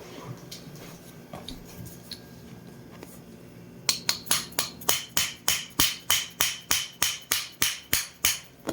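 A fast, even run of about twenty light hammer strikes, starting about four seconds in, at roughly four to five a second, each strike ringing with the same high tone. The strikes are tapping the talus back into place in a chiropractic adjustment of an inverted ankle injury.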